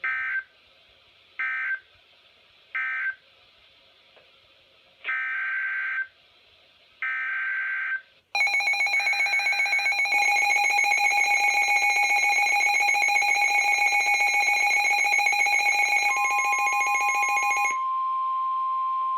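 NOAA Weather Radio emergency alert signals. Three short chirping data bursts mark the end of one warning, then two longer bursts carry the next alert's header. About eight seconds in, a loud, rapidly pulsing alarm tone sounds, and near the end a single steady attention tone takes over.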